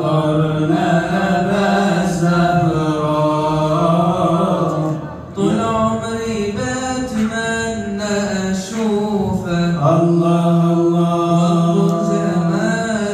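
Unaccompanied Arabic devotional chanting of salawat in praise of the Prophet: a voice singing long, drawn-out melismatic notes, with a short break about five seconds in.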